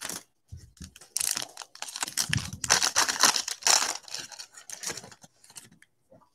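Trading cards handled with gloved hands: a few light clicks, then dense rustling and sliding of card stock from about a second in, fading near the end.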